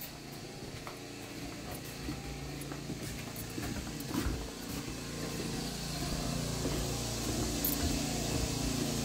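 A steady low mechanical hum and a high hiss that grow louder as the doorway opens onto the outdoors, with a few faint footsteps and knocks from carrying a plastic tub.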